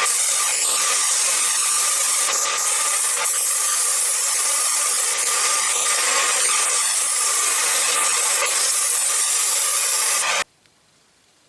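Aluminium wheel rim turning on a homemade motor-driven polishing jig while it is sanded by hand to take out oxidation pitting: a steady abrasive rasp over a steady motor hum. It cuts off suddenly near the end.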